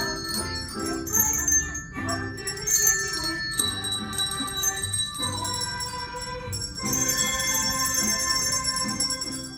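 Handbells played by a children's handbell choir: a tune of overlapping struck notes that ring on, with a lower accompaniment underneath.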